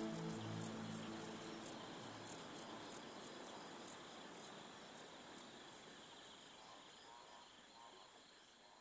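High, short insect chirps, irregular, thinning out and fading steadily to quiet. The tail of a soft music track ends in the first second or two.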